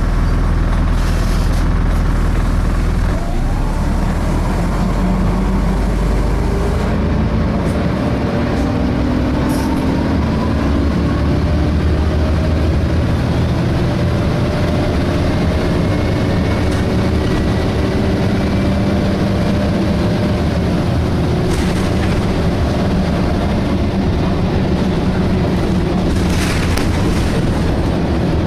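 Interior sound of a DAF SB220 single-deck bus under way: the engine and Voith automatic gearbox running, with whines that rise in pitch over several seconds early on as the bus pulls away, then a steady drone.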